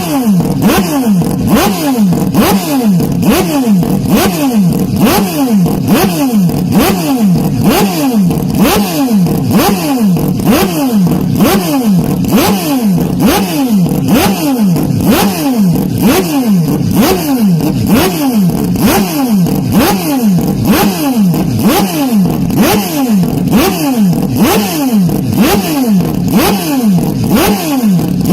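Racing car engine revving, its pitch sweeping up and down about once a second in an unbroken, regular repeat. The sound is loud and heavily distorted, with boosted bass.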